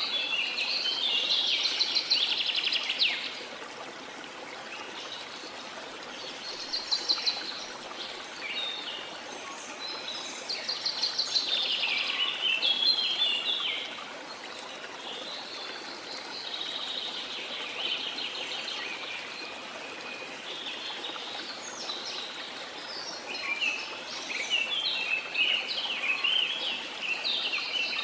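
Steady rush of a waterfall under tropical rainforest birdsong, with birds singing rapid trills and chirps in bouts every few seconds.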